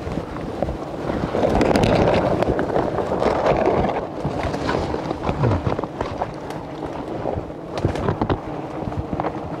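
Swarm of disturbed wild honeybees buzzing thickly around a hanging comb, mixed with rustling of brush and handling noise that is loudest in the first few seconds.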